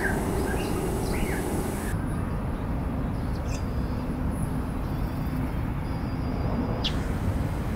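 Outdoor city-park ambience: a steady low rumble of distant traffic, with small birds chirping during the first two seconds. After that only the rumble remains, with a few faint bird calls and one short falling call near the end.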